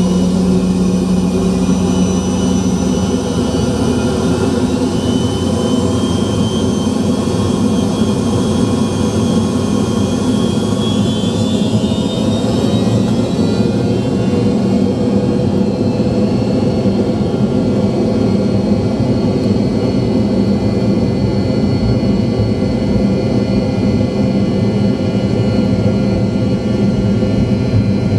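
Jet airliner's engines heard from inside the passenger cabin, running loud and steady on the ground ahead of take-off. A whine rises in pitch through the first half.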